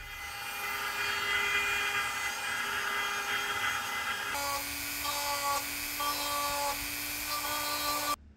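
Electric power tools running on wood: first a router's motor with a steady high whine, then after an abrupt change about four seconds in, a rotary tool with a grinding stone running steadily while it cuts into wood, higher tones coming and going over its hum. The sound stops suddenly just before the end.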